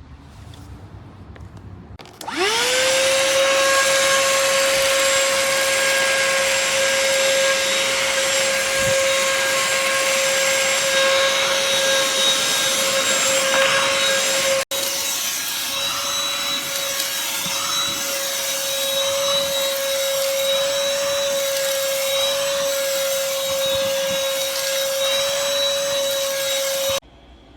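BLACK+DECKER Pivot Vac cordless handheld vacuum switched on about two seconds in, its motor whine rising quickly and then holding steady over a rushing airflow. There is a split-second break near halfway, and it runs on until it cuts off near the end.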